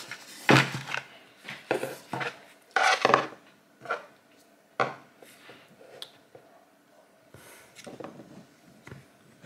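Handling noise from a GoPro Hero 11 Black action camera and its batteries: irregular sharp plastic clicks and knocks as they are picked up, set down on a desk and fiddled with, with short quiet gaps between.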